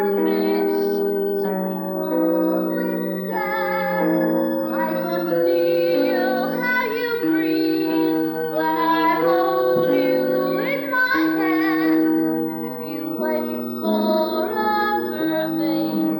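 A woman singing a slow show-tune ballad with vibrato over sustained instrumental accompaniment.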